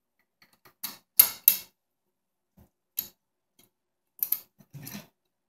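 Scattered light clicks and taps of a small steel bolt and a hard plastic foosball man being handled on a steel player rod as the bolt is fitted into the player's chest. The sharpest are two clicks about a second in, with fainter ticks later.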